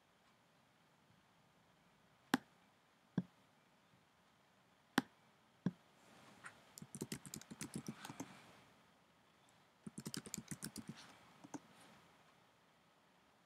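Computer keyboard typing: a few single, spaced key or mouse clicks, then two quick runs of keystrokes, the first about six seconds in and the second about ten seconds in.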